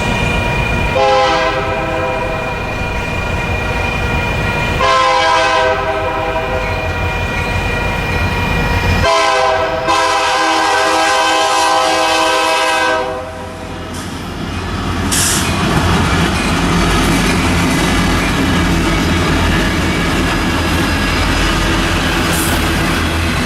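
Union Pacific freight locomotive's air horn sounding three long blasts at a crossing, followed by the train rolling past with a steady rumble of engines and wheels on the rails.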